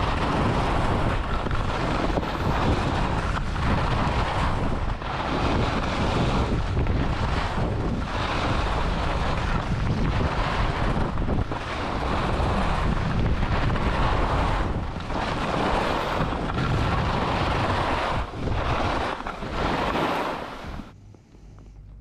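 Skis running over snow with wind rushing across the microphone, a loud hiss that swells and dips every second or two as the skier turns. It drops away sharply about a second before the end.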